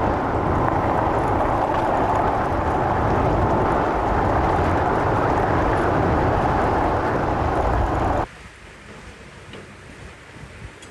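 Motorcycle on the move: steady wind rush and engine noise at the rider's microphone, cutting off abruptly about eight seconds in to a much quieter background.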